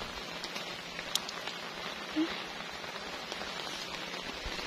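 Steady rain falling on a muddy dirt road and its puddles: an even hiss with scattered sharp ticks of single drops.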